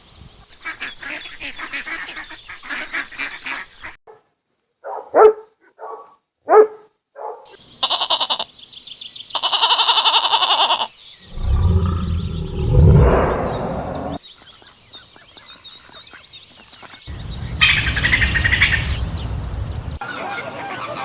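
A string of short clips of farm animals and birds calling, spliced one after another with abrupt cuts between them. The loudest sounds are a few short, sharp calls about five to seven seconds in.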